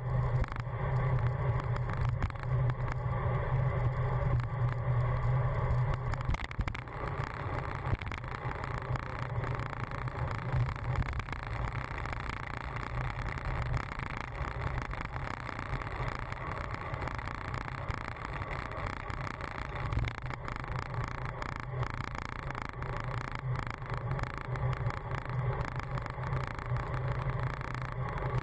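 Ride noise picked up by a handlebar-mounted camera on a road bike moving in traffic: a low rumble with a constant clicking from the bike. The rumble is heavier for the first six seconds and again over the last several.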